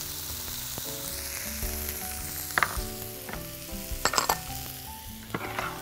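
Chopped onion and dried herbs frying in oil in a wok, a steady sizzle. A few light clinks of small glass bowls being handled come partway through.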